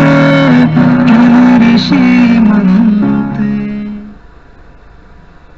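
Music with guitar and a melody line, played through the repaired CRT television's speaker, its sound circuit now working again. The music cuts off about four seconds in.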